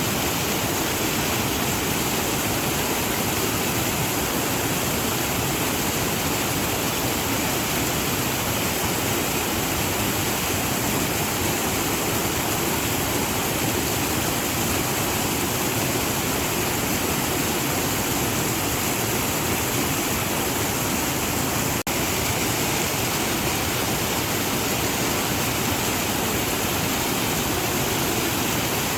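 Waterfall: water falling and splashing in a steady, unbroken rush, with a split-second dropout about two-thirds of the way through.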